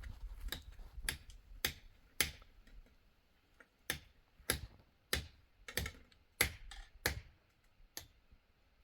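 A series of sharp knocks, roughly two a second, with a pause of about a second and a half in the middle.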